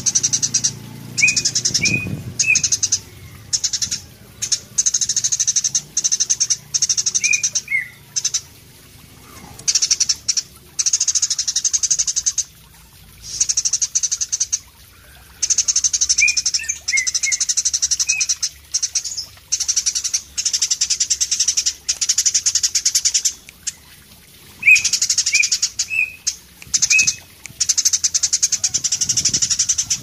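Eurasian tree sparrow singing: long, rapid, high trills repeated in bursts of one to a few seconds, with small groups of three or four short chirps in between.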